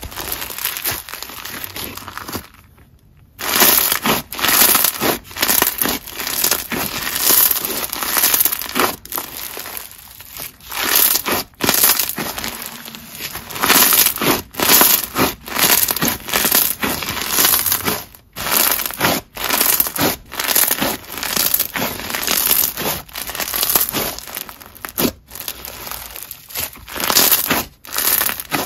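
Clear-based bingsu bead slime packed with beads being squeezed, stretched and pressed by hand: dense crunchy crackling that swells with each press, about once a second, with a short pause about three seconds in.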